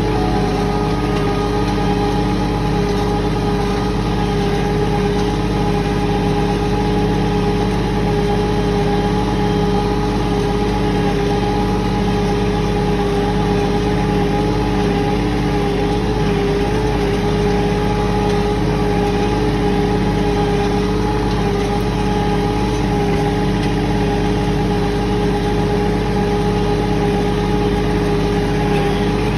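Bobcat CT4045 compact tractor's diesel engine running steadily at an even pitch, with no revving or load changes.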